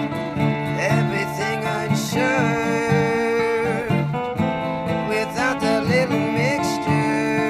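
Band music in an instrumental passage: strummed acoustic guitar under a lead melody of sliding, bending notes.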